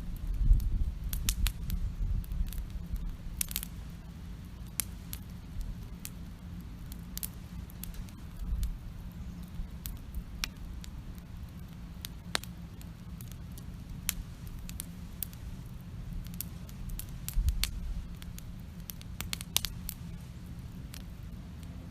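Wood campfire crackling, with irregular sharp pops and snaps scattered throughout over a low steady rumble.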